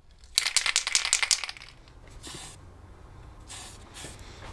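Aerosol can of conformal coating shaken, its mixing ball rattling rapidly for about a second, followed by two short hisses of spray onto a circuit board.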